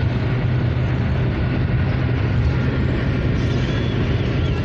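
Steady road and engine noise of a moving car, heard from inside the cabin, with a constant low hum.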